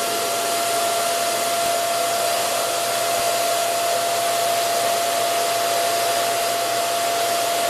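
Steady whooshing run of an electric motor, with a constant high-pitched hum over an even rushing noise.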